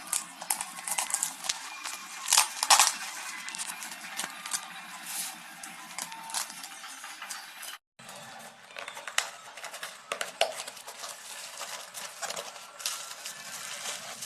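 Dumbbell set parts being handled out of their packaging: a run of small clicks, light knocks and rustles, with a couple of louder knocks about two to three seconds in.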